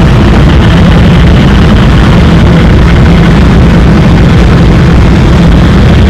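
Loud, steady engine-like rumble with a low hum that holds an even pitch throughout.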